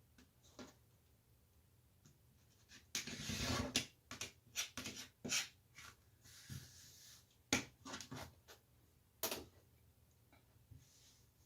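Irregular rustling and light knocks of fabric pieces and quilting tools being handled, starting about three seconds in and dying away near the end.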